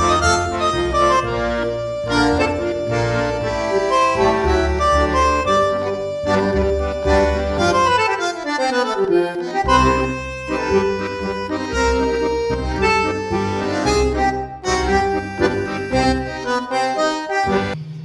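Instrumental music with held notes over a bass line; about halfway through, several notes slide down in pitch together.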